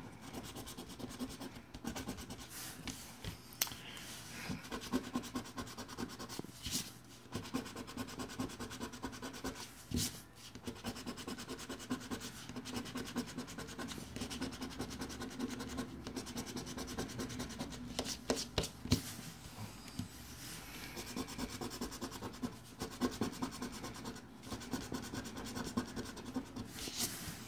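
A coin scratching the latex coating off a paper scratch-off lottery ticket: quick rasping strokes, with a few short pauses and the odd sharp click.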